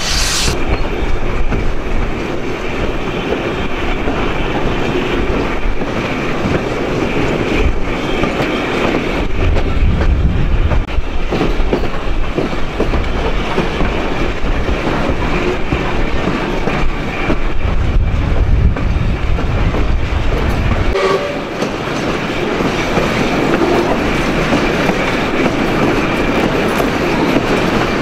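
Broad-gauge heritage train behind steam locomotive 621, running along the line with continuous rail noise and wheels clicking over rail joints. The low rumble swells twice, about ten seconds in and again near two-thirds of the way through.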